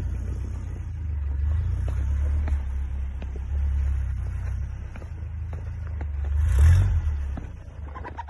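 Engine of a lifted solid-axle Toyota 4x4 running under load as it crawls through deep snow, a steady low rumble. It surges in a brief burst of revs about two-thirds of the way through, the loudest moment.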